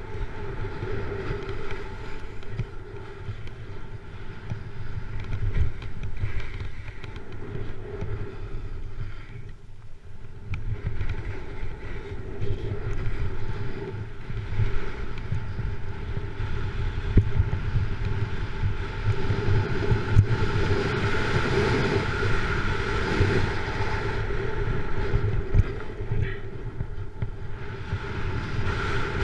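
Wind buffeting a GoPro camera's microphone while a snowboard slides and carves over groomed snow, easing briefly about ten seconds in.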